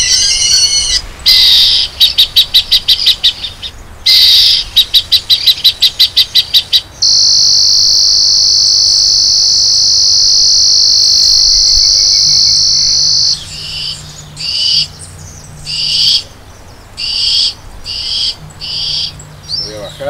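Bird Gard electronic bird repeller playing its synthetic deterrent sounds through its speaker. It starts with warbling calls, then gives two runs of rapid high pulses and a steady high tone held for about six seconds. It ends with short chirps repeated about once a second.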